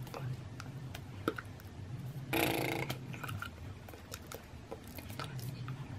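Small clicks, lip smacks and rustles from a person's mouth, hands and clothing while signing, over a low steady hum. About two and a half seconds in, a brief rushing noise, louder than the rest.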